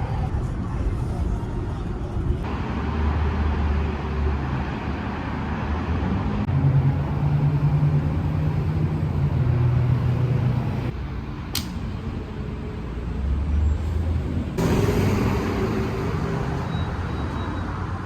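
Car engine running with road noise, in several short segments that change abruptly. A louder, deeper engine drone comes in the middle, and there is one sharp click just after it.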